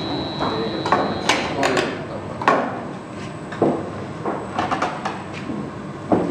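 Irregular sharp metal clanks and knocks, about a dozen, from glassblowing tools and a steel blowpipe being handled at the glassblower's bench.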